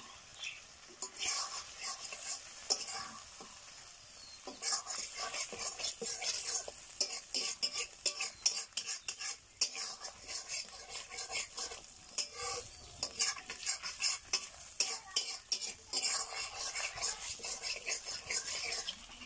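A spatula stirring and scraping thick chicken masala around a black iron kadai, with the sizzle of the gravy frying. The scrapes are sparse for the first few seconds, then come in quick, steady strokes.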